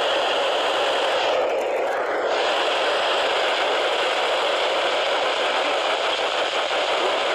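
Steady radio static hiss from a radio receiver with no clear signal coming through; the upper part of the hiss thins briefly about a second and a half in.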